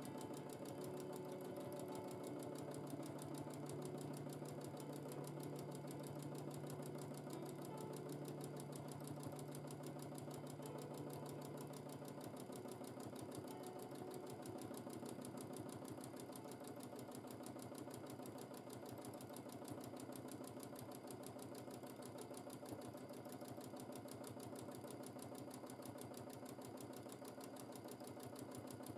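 Domestic sewing machine stitching steadily at speed, its needle going rapidly up and down through a quilt during free-motion quilting.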